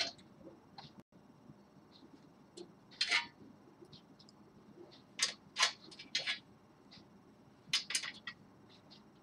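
Small metal screws and nuts clicking and tapping against a metal printer frame as they are fitted by hand, in scattered little clusters of clicks.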